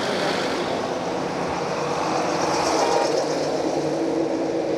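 Road traffic passing close by: a steady rush of tyres and engines that swells a little about three seconds in.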